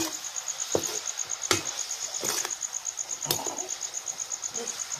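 Steel ladle stirring curry in a steel kadhai, knocking against the pan four times, the second knock loudest. Behind it, crickets chirp steadily at a high pitch, about six chirps a second.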